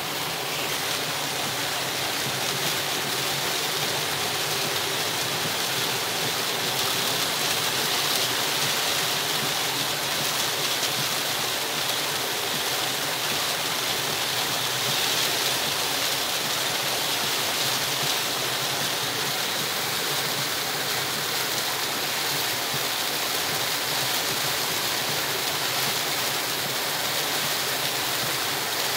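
Heavy rain on a car, heard from inside while driving on a rain-soaked road: a steady, dense hiss.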